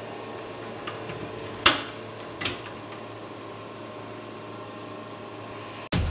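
Sharp clicks from a gas stove's burner knob and igniter being turned to light the burner under a pot of water, the loudest about a second and a half in, over a steady low hiss.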